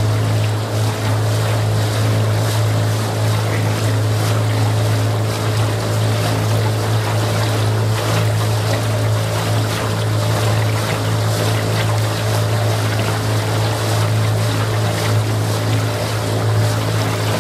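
Outboard motor of a following launch running steadily, a constant low drone, over wind and choppy water splashing against the hull.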